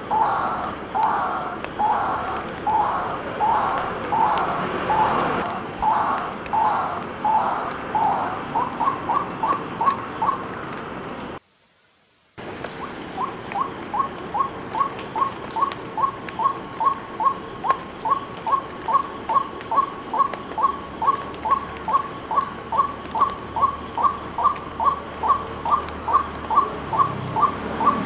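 White-breasted waterhen calling: a long series of repeated harsh notes, about one and a half a second at first, turning quicker and shorter around eight seconds in. After a break of about a second near the middle, it goes on as an even run of short sharp notes, nearly three a second.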